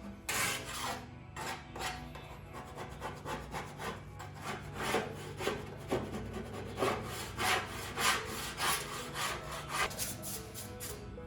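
Hand scraper scraping a thin layer of stuck-on plywood off the front cover of a table saw case, in repeated rasping strokes about two a second.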